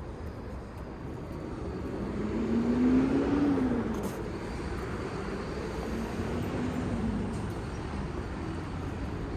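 A car driving past, loudest about three seconds in, its engine note rising and then falling twice.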